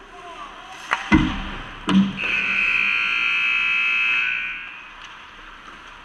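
Sharp knocks and a heavy thud close to the goal about a second in, and another knock a second later, followed by a loud, shrill, steady signal blast lasting about two seconds, a referee's whistle or rink horn at an ice hockey game.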